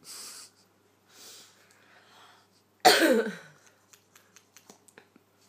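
A person close to the microphone gives one short, loud cough-like burst whose pitch falls steeply, about three seconds in, after a soft breathy exhalation at the start. Faint quick clicks follow.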